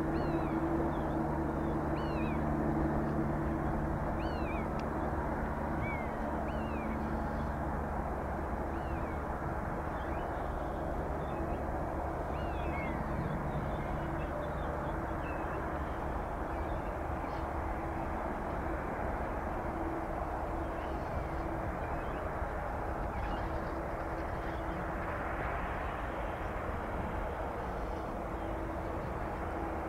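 Boeing 787 jet engines running steadily at taxi power, a low hum with a few steady tones, some of which fade about halfway through. Birds call over it in the first half with short, repeated descending whistles.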